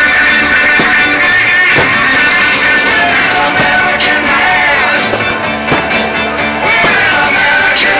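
Loud rock music with a singing voice and guitar, playing steadily.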